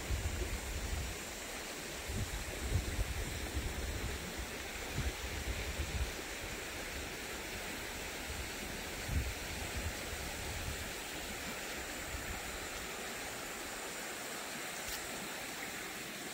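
Outdoor ambience: a steady rushing hiss, with low wind rumble and a few thumps on the microphone that die away about eleven seconds in.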